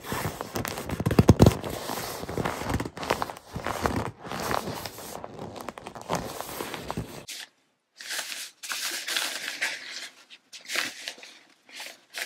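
A hand pressing and rubbing the fabric of an inflated Sea to Summit air sleeping pad, which squeaks and crinkles under the hand for about seven seconds. After a short break, hands rub the fabric of an REI Co-op Helix sleeping pad, a softer rustle without the squeak.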